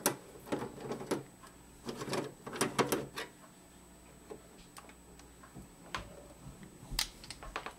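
Small clicks and light metallic knocks from hands handling screws and the sheet-metal case of an opened HP Slimline desktop computer. Clusters of clicks in the first three seconds, a few faint ticks after, and a sharper click about seven seconds in.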